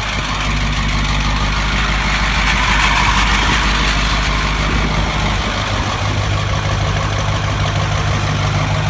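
Caterpillar diesel engine of a 1977 International Loadstar 1850 dump truck, freshly started after standing unused, running at idle. The note shifts for the first few seconds, then settles back to a steady idle about six seconds in.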